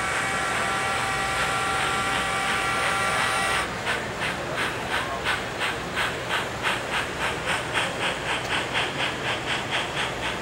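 Model steam locomotive's sound effects: a steady multi-note steam whistle for about three and a half seconds, then even rhythmic chuffing at roughly three beats a second as the train runs past.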